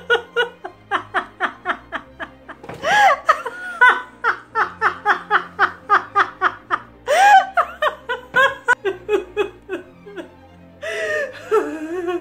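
A woman laughing hard in long runs of rapid 'ha-ha' pulses, broken by higher squealing breaths about 3 and 7 seconds in, and ending in a drawn-out falling wail.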